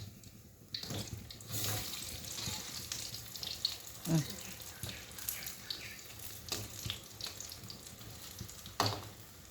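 Tempe frying in hot oil in a pan: a steady sizzle full of crackles that starts about a second in, with a couple of sharper knocks, one about four seconds in and one near the end.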